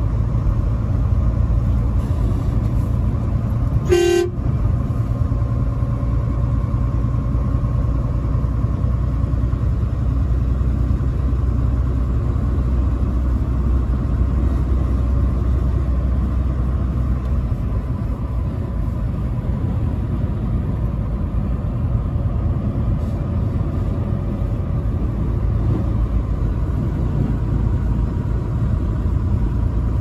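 Truck's engine and road noise running steadily, with one short horn toot about four seconds in. The deep engine drone lightens a little past the halfway point.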